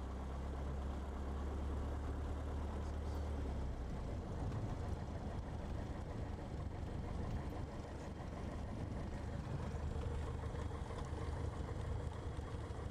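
Socata TB-9 Tampico light aircraft's four-cylinder piston engine running at low power while the plane taxis, heard from inside the cabin as a steady low drone. The drone eases slightly about four seconds in.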